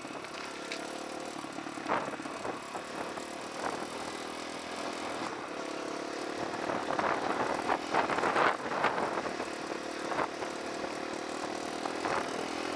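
Dirt bike engine running steadily while it is ridden, with scattered knocks and rattles, thickest about seven to nine seconds in.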